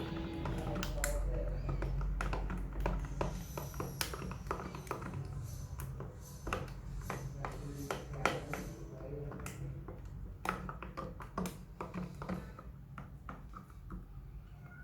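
Slime being squeezed and poked by hand, making irregular sticky clicks and pops.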